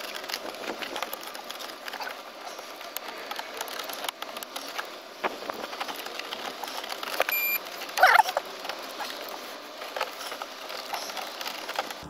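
Plastic clicks, knocks and rubbing as a VW Golf 4 instrument cluster is worked into the dashboard and its plug connectors are pushed home, with a short squeak about eight seconds in.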